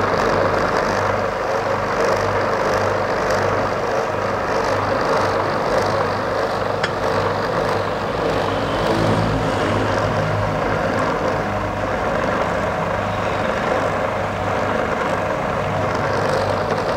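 Food processor motor running steadily, whipping garlic, oil and vinegar into a toum emulsion.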